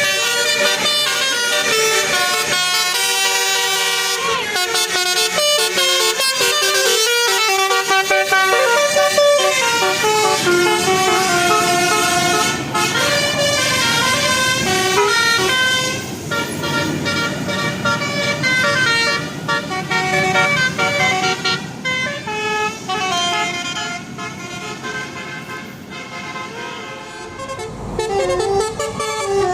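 Bus 'telolet' musical horn playing a tune of quick stepping notes, loud through the first half. From about halfway a steady low rumble joins and the tune carries on more faintly.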